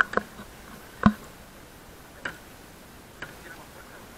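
A handful of sharp, irregular clicks and knocks, the loudest about a second in, the last near the three-second mark.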